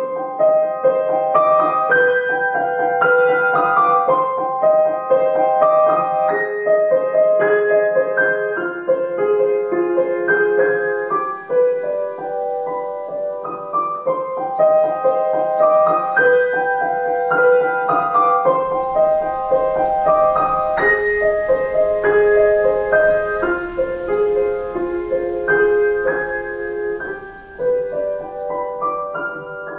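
Background piano music: a gentle melody of separate notes over chords, played without pause.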